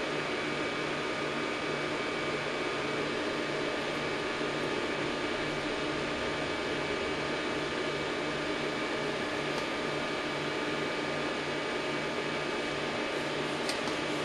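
Steady whir of cooling fans on RF power amplifiers and test bench electronics running near full output, with several steady whining tones and a low hum that pulses about three times a second.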